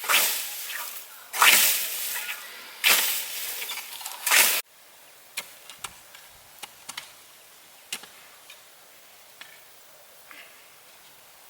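Four sweeping swishes of a tool or hands going through dry plant stalks, about one and a half seconds apart, each dying away. Then it cuts off suddenly to a quiet background with a few faint scattered clicks.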